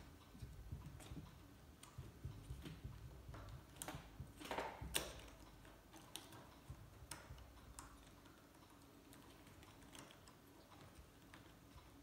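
Small plastic clicks and taps as the parts of a gas lighter are handled and fitted back together, with a brief scraping rustle about four to five seconds in.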